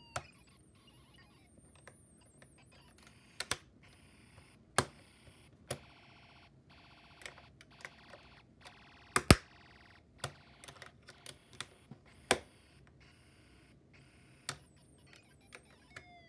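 Sharp plastic switch clicks at irregular intervals, with faint, brief electronic tones from a Snap Circuits alarm integrated circuit as it is switched on and off quickly.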